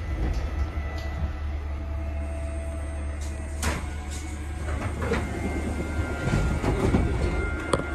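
MBTA Red Line subway car running, a steady low rumble with faint steady motor tones, and from about three and a half seconds in sharp clicks and knocks from the wheels on the rails as the train pulls out of the station into the tunnel.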